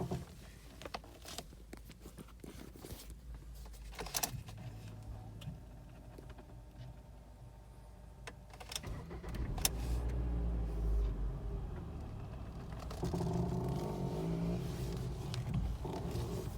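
Ford Mondeo Mk4 steering rack creaking: scattered clicks and knocks over a low steady hum, then from about halfway a louder creak with several tones in it. The creak is the sign of a faulty steering rack.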